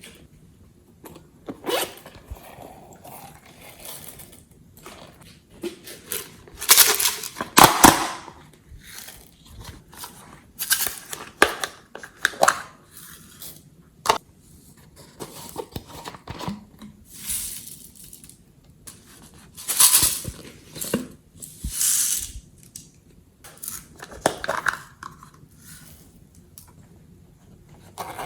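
Glossy slime being mixed and squeezed by hand: a run of irregular noises of varying length, loudest about seven seconds in and again around twenty seconds in.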